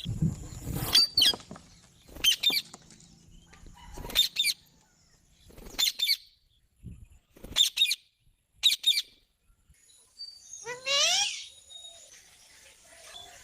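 Green parrot calling: short, shrill screeches every second or two, then a longer call that rises in pitch near the end. A brief low rustle, like wings or feathers, comes at the start.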